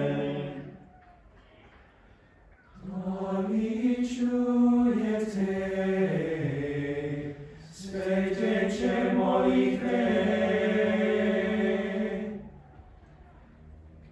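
Teenage boys' choir singing a cappella in parts, in phrases: a held chord dies away about a second in, then after a short pause two sung phrases follow, with a brief breath between them and another pause near the end.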